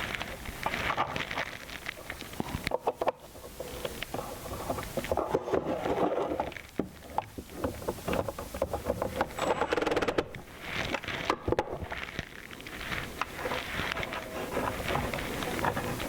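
Irregular clicks, taps and scraping of a metal cabinet handle and its screws being handled and fastened to a wooden cabinet.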